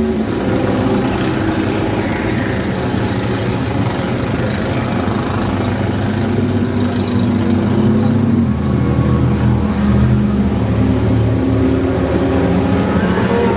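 Several go-kart engines running as the karts lap the circuit, their pitches rising and falling as the drivers accelerate and lift off.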